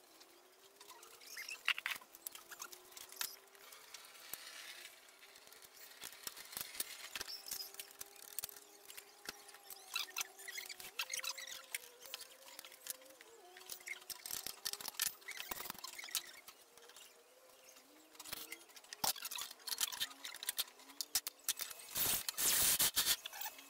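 Homemade drill press boring into a steel plate with a twist drill bit: a faint motor hum that wavers in pitch under the feed, with scattered clicks and scrapes from the cutting. A louder, harsher stretch of cutting noise comes near the end.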